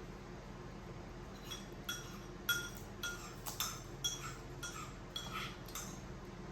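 A spoon clinking against a bowl: about a dozen light, quick taps with a short ring, starting about a second and a half in and stopping near the end.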